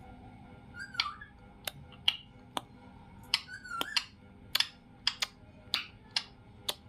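Pet parrot making a string of short, sharp clicks and chirps, one or two a second, with two brief whistled notes, one about a second in and one near four seconds in.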